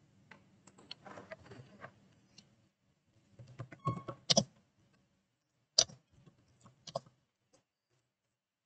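Computer keyboard being typed on: faint, irregular runs of key clicks, with a few louder keystrokes about four and six seconds in.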